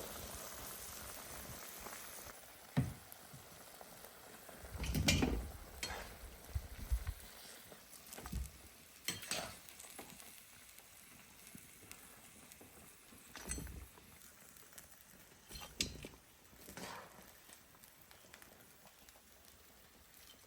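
Kitchen work with pots and utensils: scattered knocks, clinks and scrapes, a dozen or so spread irregularly, the heaviest a dull thump about five seconds in, over a faint steady hiss that fades in the first two seconds.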